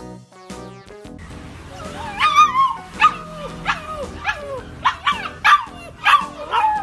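A puppy giving a run of about eight short, high yapping barks, each falling in pitch, starting about two seconds in. Music plays in the first second.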